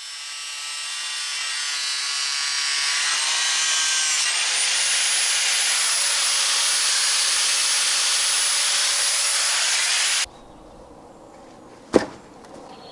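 Power tool grinding or cutting: a loud hiss with a high steady whine that fades in and cuts off abruptly about ten seconds in. Then quiet outdoor background and one sharp knock about two seconds later.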